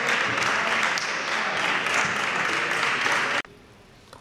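Spectators applauding in a sports hall: a dense, steady patter of clapping that cuts off abruptly about three and a half seconds in, giving way to much quieter hall sound with a few faint ticks.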